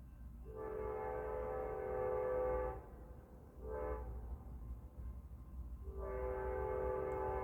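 Amtrak locomotive air horn sounding in the distance, a chord of several steady notes: a long blast, a short blast about three and a half seconds in, then another long blast starting about six seconds in.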